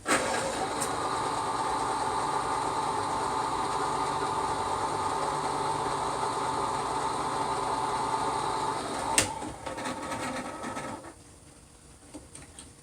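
Electric can opener running steadily, a small motor's hum that starts abruptly, gives a click about nine seconds in and winds down soon after.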